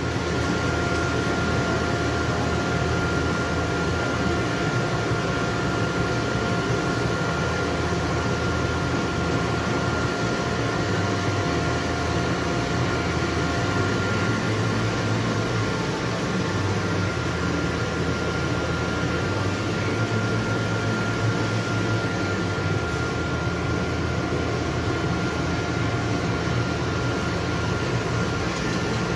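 Small homemade metal-melting furnace running, firing to melt copper and tin for bronze: a steady rushing noise with a thin, steady whine.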